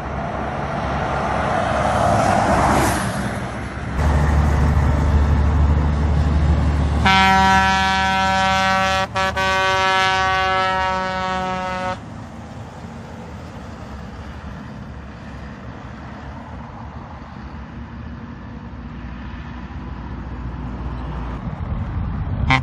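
Bus engine rumble, then a bus horn sounds one long, steady blast of about five seconds with a brief dip midway. Engine and traffic noise follow, and a quick series of short horn toots starts near the end.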